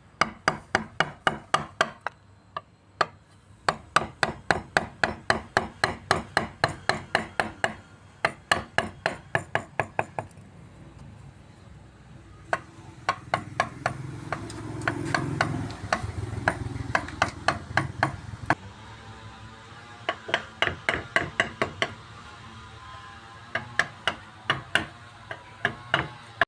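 Mallet tapping a carving chisel into teak wood in quick runs of about three or four strikes a second, with short pauses between runs: hand-carving the wood.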